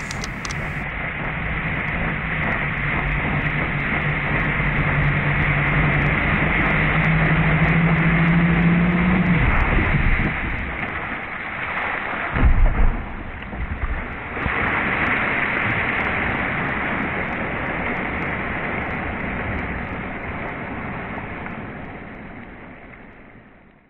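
Electric jet-drive kayak running on the river: a rushing of jet-wash water with a motor whine that rises in pitch, then drops away about ten seconds in. A brief low buffeting thump comes midway, then the water rush carries on and fades out near the end.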